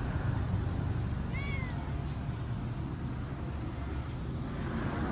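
A domestic cat gives one short meow, rising then falling in pitch, about one and a half seconds in, over a steady low rumble.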